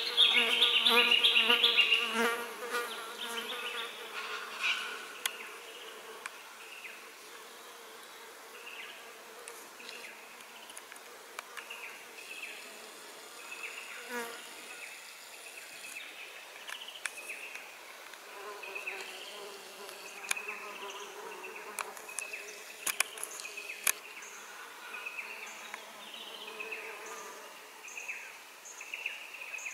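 A flying insect buzzing close by, loud and pulsing for the first two seconds or so. After that comes fainter buzzing, scattered short high chirps and a few sharp clicks.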